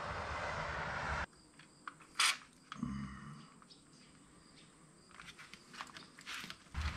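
Quiet hand work on a removed rear wheel hub and backer plate: scattered light clicks and taps, with one short hiss about two seconds in from an aerosol can of penetrating fluid. A steady background hiss cuts off just over a second in.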